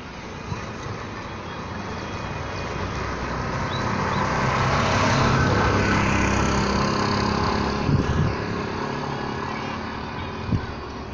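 Street traffic below: a motor vehicle passing, its engine and road noise swelling to a peak around the middle and then fading. Two short knocks come near the end.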